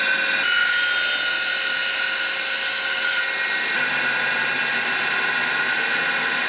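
Table saw running with a steady whine. About half a second in, the blade cuts into a wooden board, adding a hissing cutting noise for nearly three seconds. The saw then spins on without load.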